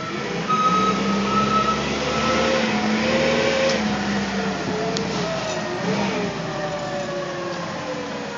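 Forklift running as it drives, its motor whine rising and falling in pitch as it speeds up and slows down.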